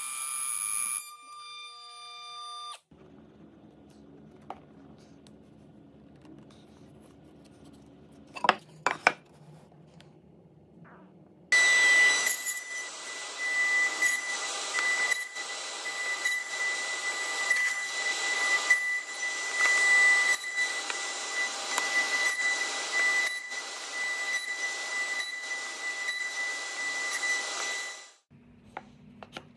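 Table saw cutting box-joint slots in a pine board: the saw comes in abruptly about a third of the way in with a steady high whine and a dense cutting noise, marked by short rasps about once a second as the board is fed through, and cuts off near the end. Before it there is only a faint low hum with two sharp knocks.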